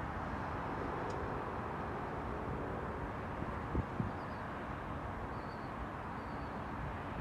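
Steady outdoor background noise, with two brief low thumps about four seconds in and a few faint high chirps in the second half.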